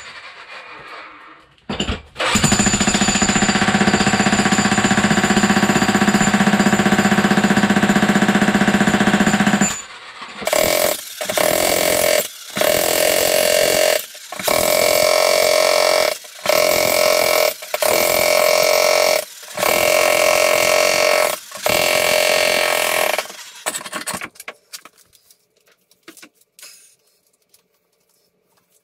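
Jackhammer breaking up a concrete floor slab. It runs for about eight seconds, then in short bursts of a second or so with brief pauses between, and stops about two-thirds of the way through, leaving only faint scattered knocks.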